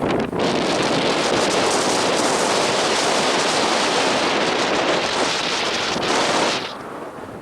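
Loud, steady rush of wind and surf noise on an open beach, lasting about six seconds and cutting off sharply near the end.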